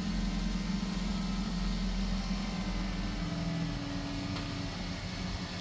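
Toyota Corolla's engine idling, a steady low hum.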